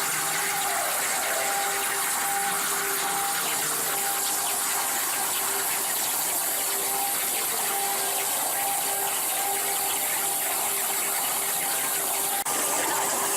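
CNC plasma cutting machine running: a steady hiss with a faint whine that comes and goes, and a single click near the end.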